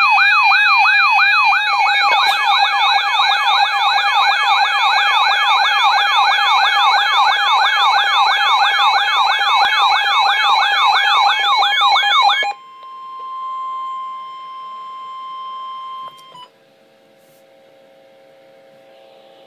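Emergency alert siren opening a severe thunderstorm warning broadcast: rapid rising-and-falling wails, about two and a half a second, over steady tones. It cuts off sharply about twelve seconds in. A quieter single steady alert tone follows for about four seconds, then a faint steady hum.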